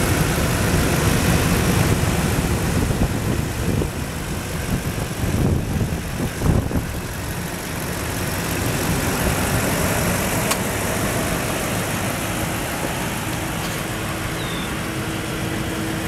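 Toyota Land Cruiser's V8 engine idling steadily, with the hood open. A few low thumps rise over it about six seconds in.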